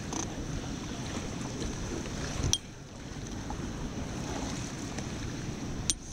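Rushing high river water and wind buffeting a raft-mounted life-jacket camera's microphone, with two sharp knocks, one about two and a half seconds in and one near the end.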